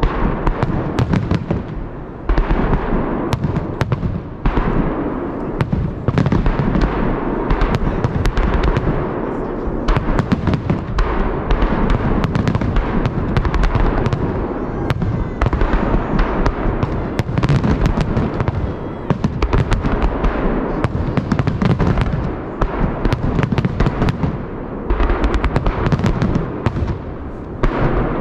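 Festive fireworks salute: volleys of shells bursting with dense, rapid crackling pops over a heavy low rumble, swelling and easing in waves every few seconds.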